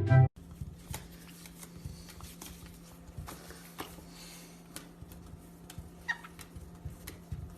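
Small pet birds moving about, with scattered faint clicks and scratches and a couple of brief soft chirps about six seconds in, over a steady low hum. A music track cuts off just at the start.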